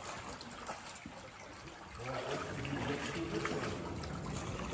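River water trickling and lapping, louder from about two seconds in.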